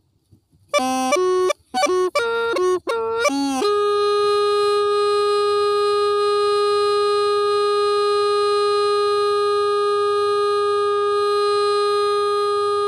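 Hmong raj les le bamboo pipe playing a slow melody. It opens with a few short notes leaping up and down in pitch, then settles about three and a half seconds in on one long held note.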